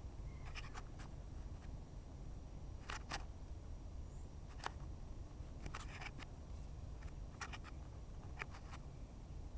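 Norwegian cat's paws crunching in thin fresh snow as it walks: short, crisp, scratchy crunches in small clusters, about a dozen in all, over a steady low rumble.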